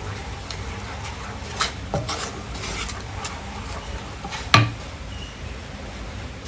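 Wooden spoon stirring and scraping thick mango puree in a pan, with a few light knocks of the spoon against the pan, the loudest about two-thirds of the way through.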